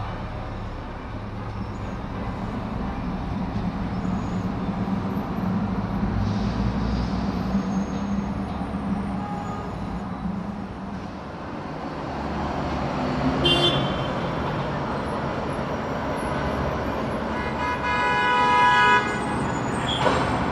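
City street traffic: vehicle engines rumbling steadily, with a short horn blast just past the middle and a longer, louder horn blast near the end.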